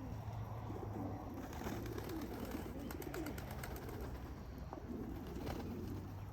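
Racing pigeons cooing, several low wavering coos overlapping, with a run of quick light clicks a couple of seconds in.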